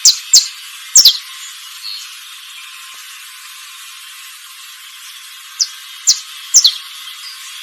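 A songbird giving short, sharp, high chirps, each a quick downward sweep. There are four in the first second or so, then a pause, then another run of four after about five and a half seconds, over a steady faint high background hiss.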